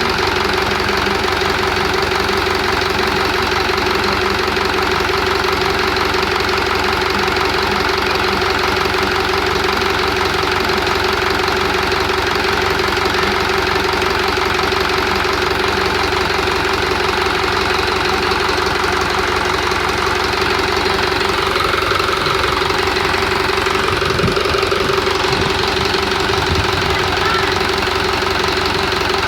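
Truck engine idling steadily, warm just after finishing work.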